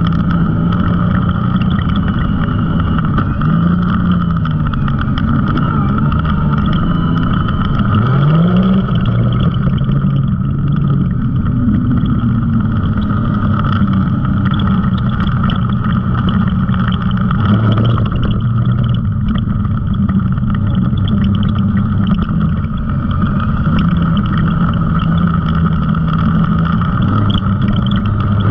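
Side-by-side UTV engine running while driving along a dirt trail, its pitch rising and falling as the throttle is worked, with a steady higher whine alongside the engine note.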